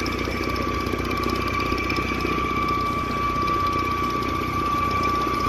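An engine running steadily at idle, with a constant high whine over its low rumble.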